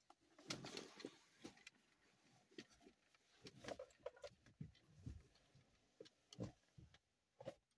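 Faint, irregular knocks, clicks and rustling of things being handled and moved about, with a few louder knocks scattered through.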